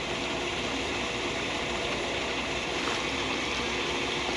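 Steady hiss of rain and running water, even throughout, with a faint steady hum underneath.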